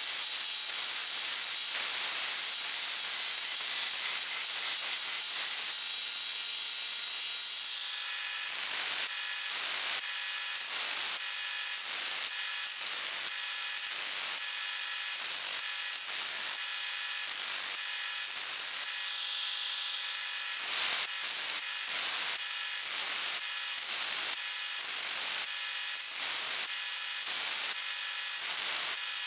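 Belt grinder grinding a steel dagger blank: a dense steady hiss of steel against the abrasive belt for the first seven seconds or so. Then the grinder runs with a steady whine while the blade is set to the belt in short scraping strokes, about one a second.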